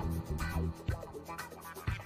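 Background music with a steady beat, about two beats a second, over deep bass notes.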